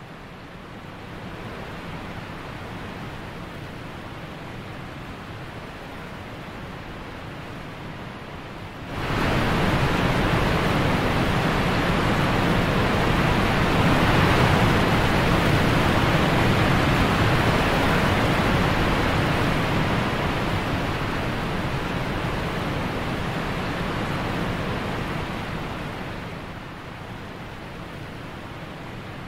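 Steady rushing noise laid in as a sound effect: a low hiss at first that swells suddenly about nine seconds in into a loud, full rush, holds, then eases back down a few seconds before the end.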